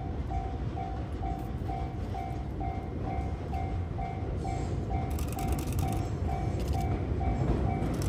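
Japanese level-crossing warning bell ringing about twice a second, a two-pitch electronic ding, over the low rumble of an approaching Shintetsu 5000 series electric train that grows louder. A rapid fine clicking joins in from about five seconds in.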